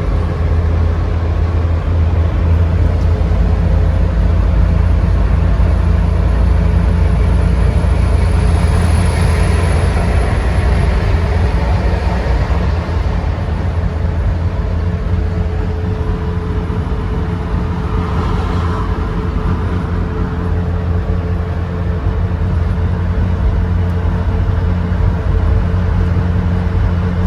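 GAZ Gazelle van on the move, a steady engine and road drone with no pops or bangs standing out.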